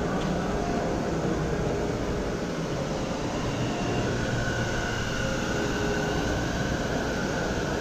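Steady rushing noise of a busy hall where live-steam model locomotives are being made ready, with a faint high whine joining about four seconds in.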